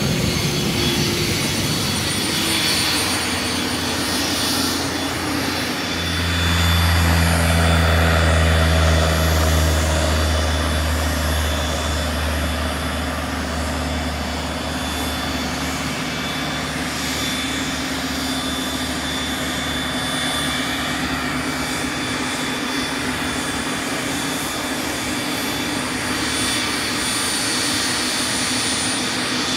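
Cessna Citation Ultra's twin Pratt & Whitney JT15D turbofans running at taxi power: a steady high turbine whine over a rush of exhaust. A deep rumble swells for several seconds about six seconds in, then eases back.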